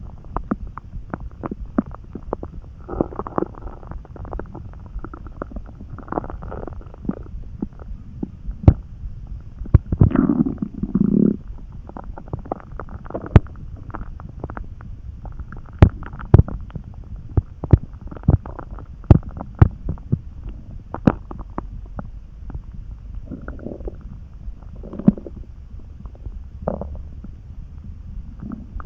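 Hungry human stomach calmly churning: frequent short pops and clicks with occasional longer gurgles, the longest and loudest about a third of the way in. It is the sign of an empty stomach some hours after a meal.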